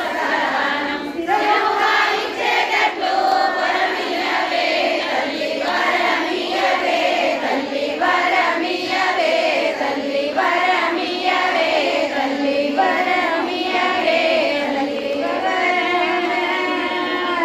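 A woman sings a devotional song into a microphone, her amplified voice holding long notes, with a group of women's voices singing along.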